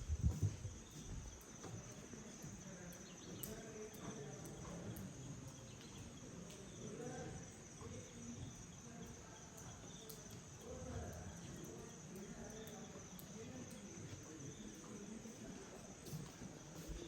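Steady high-pitched insect chirring, such as crickets, with faint distant voices murmuring underneath.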